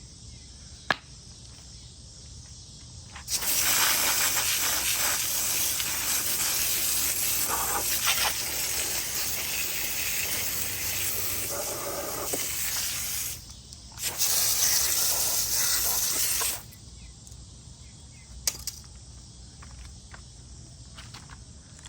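A strong steady hiss of spraying or blown air, in two long bursts: one of about ten seconds, a short break, then another of about two and a half seconds.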